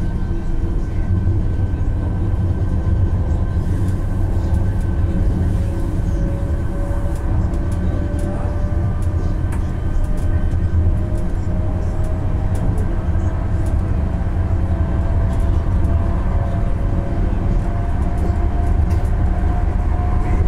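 Running noise heard inside the passenger cabin of an Alstom Citadis Dualis tram-train under way: a steady low rumble of wheels on rail, with a traction motor whine that rises slowly in pitch through the second half.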